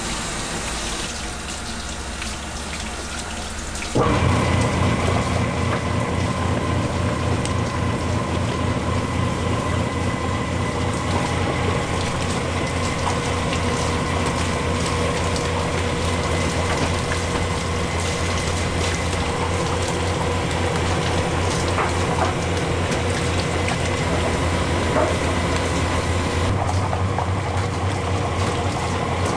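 Rice-cake (garae-tteok) extruder machine starts about four seconds in and runs steadily, a motor hum with a fast low throb, over water splashing into a tub.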